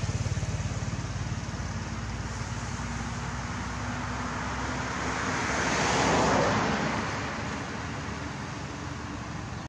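Road traffic: a low engine rumble fading out, then a passing vehicle whose noise swells to a peak about six seconds in and fades away.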